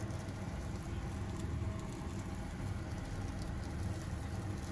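Takoyaki batter sizzling on a hot takoyaki plate: a steady crackling hiss over a low hum.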